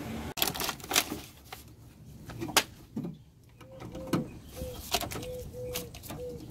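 Sharp metallic clicks and knocks of a socket driver working bolts in a car's bare inner door panel. From about halfway through, a dove coos in the background, short even notes repeating about twice a second.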